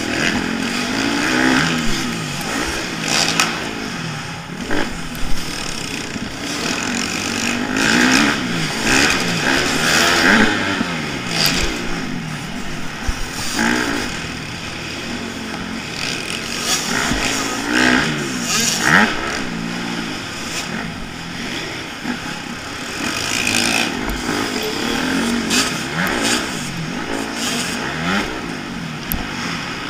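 Dirt bike engine racing, heard close up from a camera on the bike, its pitch rising and falling over and over as the throttle opens and closes through corners and straights, with sharp knocks now and then.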